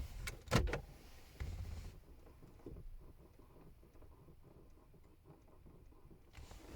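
Recirculation flap actuator motor behind a car's glove box clicking and briefly buzzing in fits: three sharp clicks in the first second, a short buzz about a second and a half in, then faint irregular ticks. The motor's wires were never soldered, so it gets power on and off at random.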